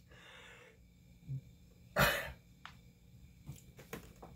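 A man breathing hard through the burn of a super-hot sauce: a hissing exhale at the start, then a short, sharp forceful burst of breath like a cough about two seconds in, followed by quieter breaths.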